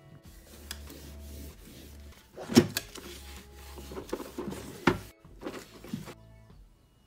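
Plastic shrink wrap crinkling and crackling as it is peeled off and crumpled from a cardboard box, mostly from about two and a half seconds in to about six seconds, with two louder crackles about two and a half and five seconds in.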